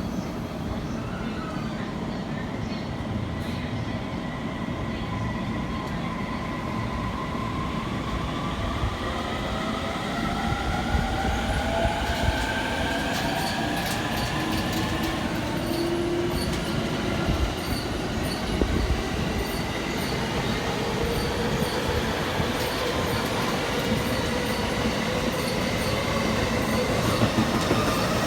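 An electric train running at the station with a steady rail rumble. Its motor whine rises in pitch over several seconds, and light wheel clicks come in after the middle as the sound grows slowly louder.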